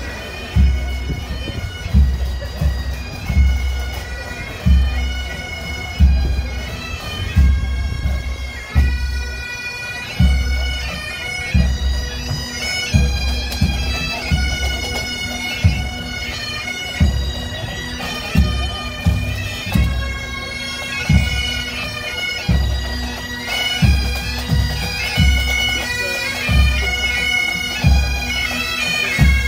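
Pipe band playing on the march: massed bagpipes sounding a melody over their steady drones, with a drum beating a regular low beat about one and a half times a second.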